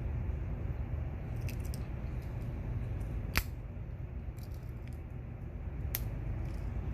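Small sharp metallic clicks from the Victorinox Super Tinker's tools being handled, its small spring scissors among them: a few faint clicks, a loud one about halfway through and another near the end, over a steady low hum.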